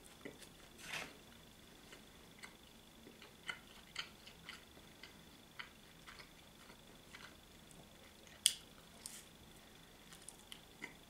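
Faint chewing and biting of a pizza slice: scattered soft wet mouth clicks and small crunches, the sharpest about eight and a half seconds in, over a faint steady high-pitched whine.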